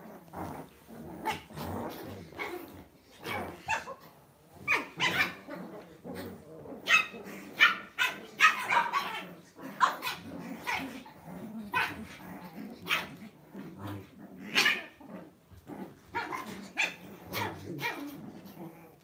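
Lhasa Apso dogs play-fighting, giving short, irregular barks, with the loudest bunched around the middle.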